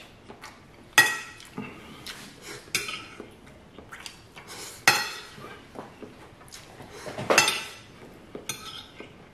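Metal fork clinking and scraping on a plate while scrambled eggs are scooped up, in a few separate sharp clinks, the loudest about a second in.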